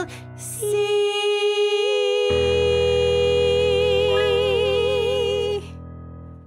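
The last held note of an improvised musical-theatre song: two voices sustain a long note in harmony and go into vibrato toward the end. A sustained keyboard chord comes in about two seconds in, and the music fades out near the end.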